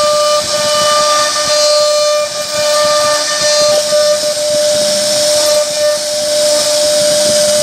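CNC router spindle running at a steady high whine while its small carving bit mills relief scrollwork into a wooden door panel. A hiss of wood being cut lies over the whine.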